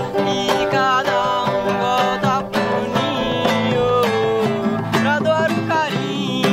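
Acoustic guitar strummed as a man sings, with a djembe played by hand alongside.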